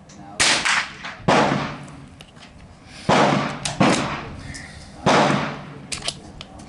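Rifle shots on a shooting range firing line: five sharp reports at uneven intervals, each trailing off in a short echo, with a few faint clicks between them.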